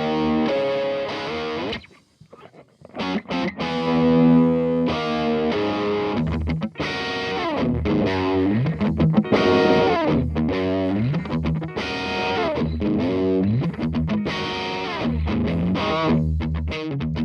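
Isolated distorted electric guitar track playing a rock riff with sliding notes, run through a Calrec PQ1549-style equaliser; the guitar stops briefly about two seconds in.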